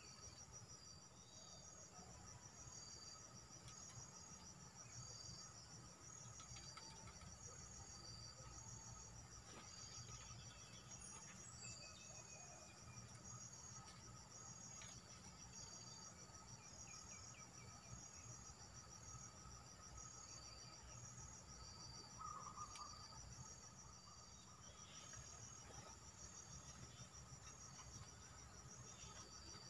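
Faint insect chorus: a high trilling that repeats evenly and steadily, with a few faint, short bird notes here and there.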